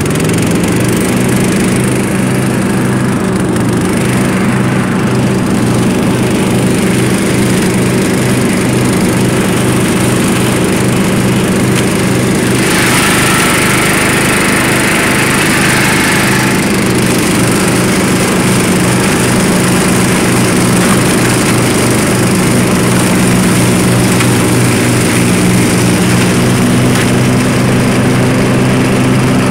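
Murray lawn mower's engine running steadily under load while bagging leaves. For a few seconds near the middle, a rushing noise rises over the engine.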